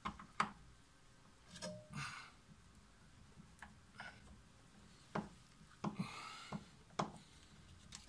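Irregular light clicks and knocks, about a dozen, with a couple of brief scrapes, from hands and a tool working on the plastic drain pump housing of a washing machine.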